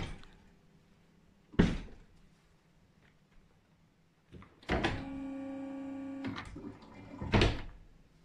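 Hydraulic motorcycle lift: a sharp metallic clunk, then a steady electric pump hum that runs for about a second and a half and stops abruptly, followed by another clunk.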